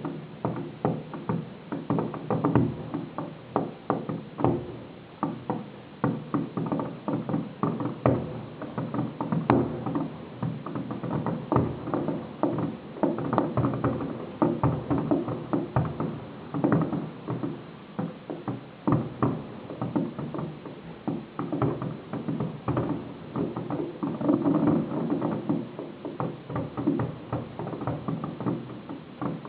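Fireworks display going off in a dense, unbroken run of bangs and crackling reports, several a second.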